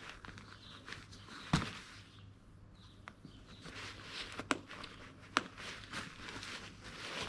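Fabric rustling and a few sharp knocks from an inflatable sleeping mat being handled, the loudest knock about one and a half seconds in.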